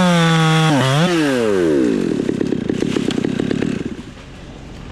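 Gas chainsaw revving high, dipping and revving once more about a second in, then falling back to a slow idle and going quiet about four seconds in.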